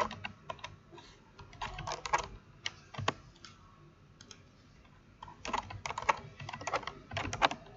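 Typing on a computer keyboard as numbers are entered into a spreadsheet: short runs of quick keystrokes, with a quiet pause of about two seconds in the middle.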